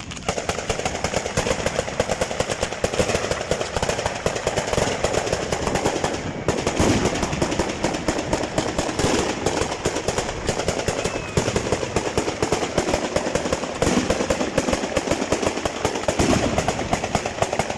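Fireworks going off in a rapid, unbroken barrage of sharp cracks and bangs, many a second.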